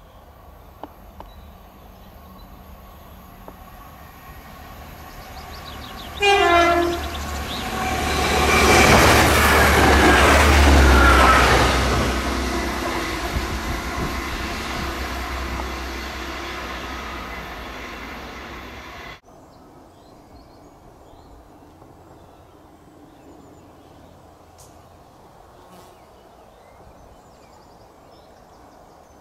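Diesel multiple unit passenger train approaching and sounding a short horn blast about six seconds in, the horn's pitch sliding down. It then runs past with a loud rush of engine and wheel noise that slowly fades, before the sound cuts off abruptly, leaving faint outdoor background.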